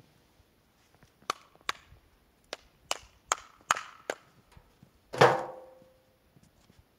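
Split firewood being handled at a chopping block: about seven sharp wooden knocks in quick succession, then one loud clunk with a short ringing tail about five seconds in as the pieces are tossed down.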